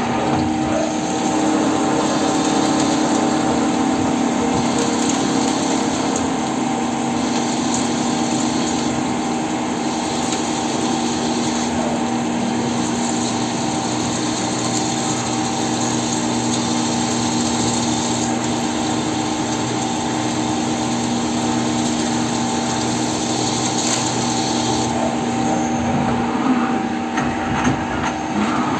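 CNC lathe running a turning cycle, a steady machine hum with a constant hiss of cutting and coolant. The hiss changes character every few seconds.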